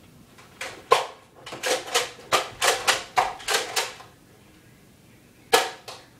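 Nerf blasters firing in a series of sharp clacks: a couple near the start, then a quick run of about nine, a pause, and two more near the end.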